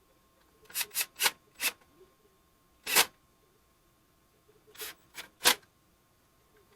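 About eight short, sharp clicks and taps of small metal hardware being handled while washers and nuts are fitted to screws. They come in two clusters, one about a second in and another in the second half, with a louder single tap in between.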